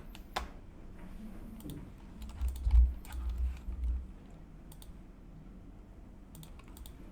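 Computer keyboard and mouse clicks in scattered taps, with a cluster of low thuds around the middle, the loudest part.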